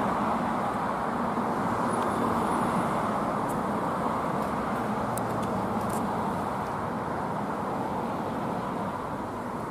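Steady road traffic noise from cars passing on a multi-lane street, an even wash of tyre and engine sound.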